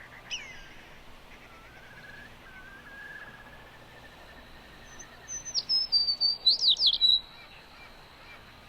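Birds singing: a short falling whistle, then a soft wavering whistle, then a quick run of loud high chirps about five seconds in.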